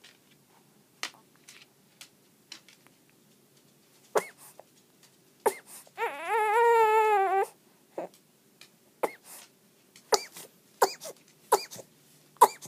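Newborn baby fussing face-down in sleep: a series of brief sharp squeaks, and one wavering cry about six seconds in that lasts a second and a half.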